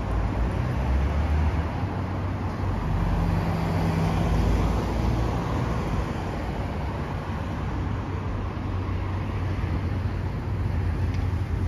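City street traffic: a steady low rumble of passing vehicles' engines and tyres, with one vehicle's engine loudest about four seconds in.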